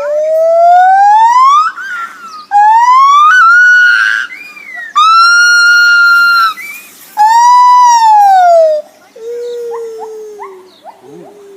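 Lar gibbon calling: four long, loud, pure-toned notes about a second and a half each. The first two slide upward in pitch, the third is held high and the fourth arches over and falls. After that come quieter short rising notes and a lower falling note.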